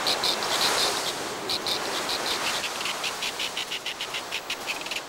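Strong wind blowing steadily while snow petrels give harsh, rapid chattering calls: runs of quick high-pitched pulses, several a second, with a short break about a second in.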